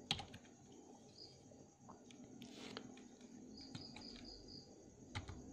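Faint computer keyboard keystrokes, a few scattered clicks, over a quiet room with faint high chirps in the background.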